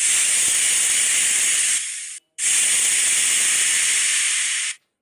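Snake hissing: two long hisses with a short break about two seconds in.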